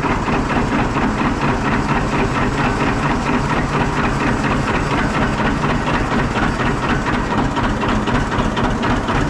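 Tractor engine running steadily at a constant speed, with a fast, even pulse.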